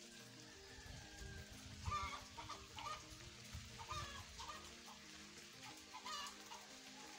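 Chickens clucking intermittently, faint, over soft background music with a slow stepping melody.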